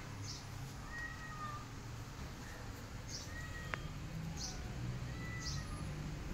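Calico kitten meowing: three short, thin calls about two seconds apart, over a steady low hum, with a few brief high chirps and one sharp click a little before the midpoint.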